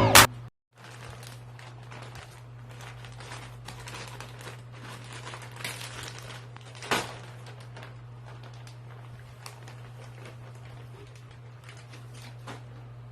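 Crinkly parcel packaging being handled and opened, with irregular rustling and crackling and one louder crackle about seven seconds in. A steady low hum runs underneath, and a song cuts off right at the start.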